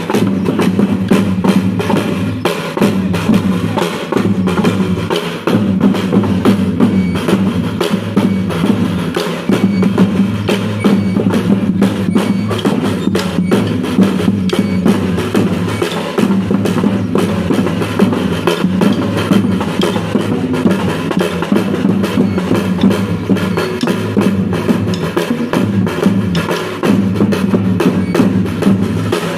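Live Brazilian folk percussion ensemble, drums and wooden percussion playing a steady, busy dance rhythm of the sussa and baião kind, with sustained low tones underneath.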